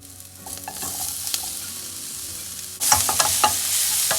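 Sliced bell peppers, onion and garlic sizzling as they fry in a pan, with a utensil clicking and scraping against the pan as they are stirred. The sizzle jumps suddenly louder near three seconds in.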